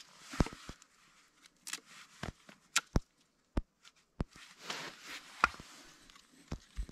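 Hatchet chopping and splitting dead wood for a campfire: a series of sharp, irregular knocks, with rustling between the strikes.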